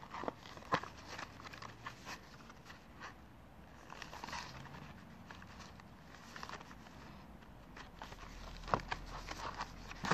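Handling noise from a small cardboard box being turned over in a knit-gloved hand: soft scraping and rustling with scattered light taps, two of them sharper, one near the start and one near the end.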